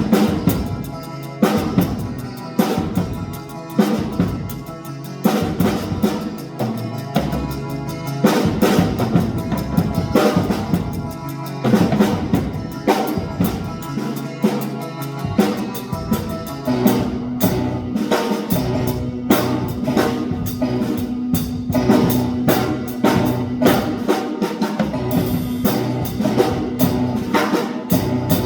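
Drum kit played live in a busy rhythm of snare, bass drum and rimshot strikes, over steady pitched tones; a held note joins a little past halfway.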